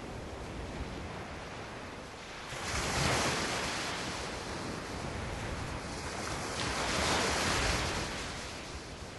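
Ocean surf: a steady wash with two waves breaking, the first about two and a half seconds in and the second about six and a half seconds in.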